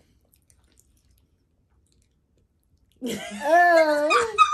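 Mostly quiet with a few faint clicks; about three seconds in, a woman lets out a long, wavering wordless groan of disgust as she eats a soaked Pop-Tart.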